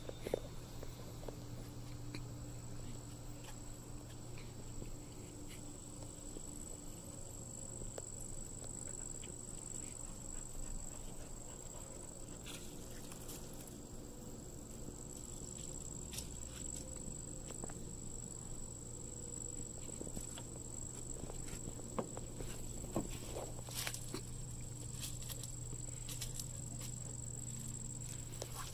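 Backyard ambience: a steady high-pitched whine over a steady low hum, with scattered light footsteps and taps on deck boards, more of them near the end.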